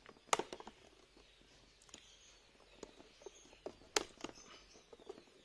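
Irregular light clicks and taps of handling, about a dozen, with two sharper clicks about a third of a second in and about four seconds in.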